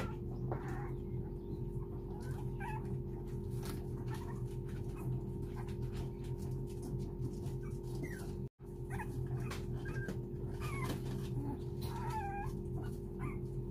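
Four-week-old puppies whimpering and whining in short, wavering high cries, crying to get out to their mother. A steady low hum runs underneath, and the sound cuts out for an instant about two thirds of the way through.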